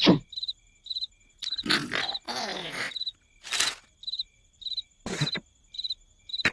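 Cricket chirping sound effect, short high chirps repeating about twice a second, with a few louder breathy bursts in between.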